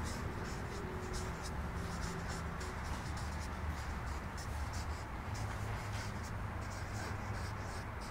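Felt-tip marker scratching and squeaking across a sheet of paper as words are written out, in a quick run of short strokes with brief pauses between words. A steady low hum lies underneath.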